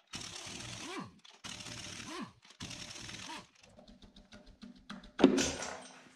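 Air-powered wrench run in three short bursts, its motor pitch rising and falling each time, on the harmonic-balancer bolts of a 12-valve Cummins. Near the end comes a single loud metal clunk as the balancer is pulled off the crank.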